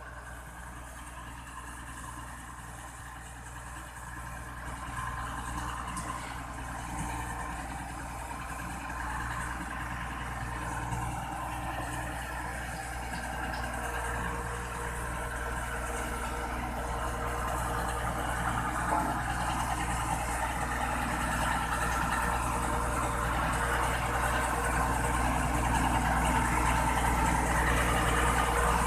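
SAKAI SV510D single-drum vibratory roller's diesel engine running steadily, louder toward the end.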